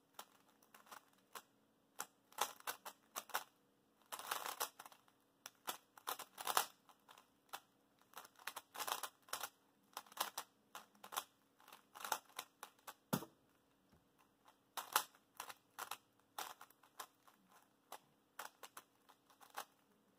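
Plastic 3x3 speedcube being turned fast in a timed solve: quick runs of clicking and clacking as the layers snap round, broken by short pauses.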